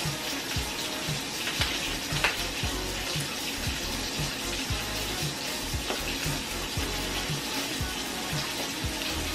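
Sausage frying in its own grease in a pan: a steady sizzle with a few sharp pops, under background music with a steady low beat.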